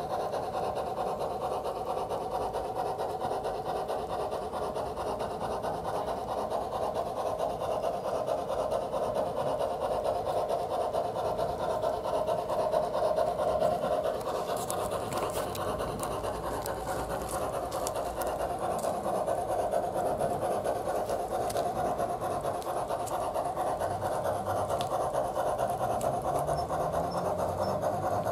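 Soundtraxx Tsunami sound decoder in a Bachmann G scale Climax model locomotive playing a steady steam-engine chuff through its small onboard speaker as the train runs. A few sharp clicks come in about halfway through.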